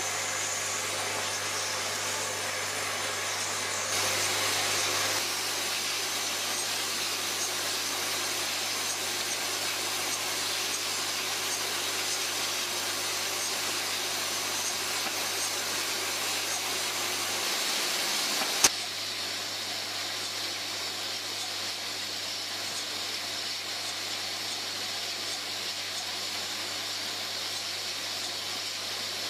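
Small rotary bottle unscrambler running, sorting plastic bottles out of its hopper bowl into a chute: a steady mechanical whir and hiss over a low hum. A single sharp click comes about two-thirds of the way through, after which the noise is slightly quieter.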